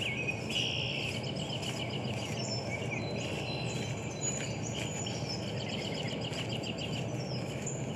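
Birds chirping and trilling in repeated short runs over a steady low rumble of background noise.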